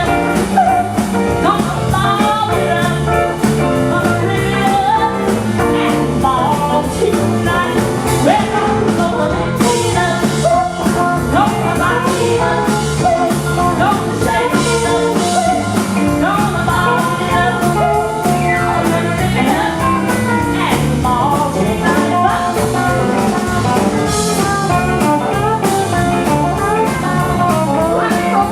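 Live band playing a loud rock and roll number, with guitar over a steady beat.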